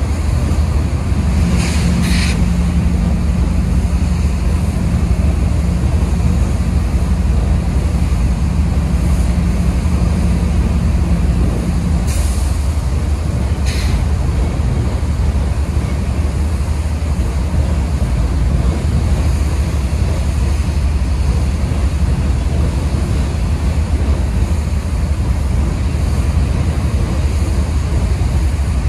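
Freight train of hopper cars rolling past with a steady low rumble and a hum that stops about twelve seconds in. Brief high hisses come twice near the start and twice about twelve to fourteen seconds in.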